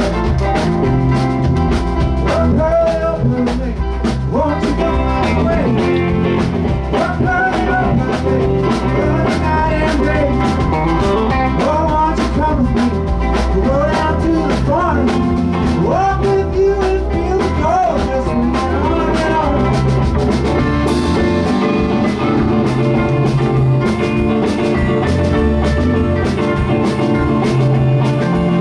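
Live band playing a blues-rock number: drum kit and bass keep a steady beat under a lead line that bends up and down in pitch, with the cymbals brighter in the last third.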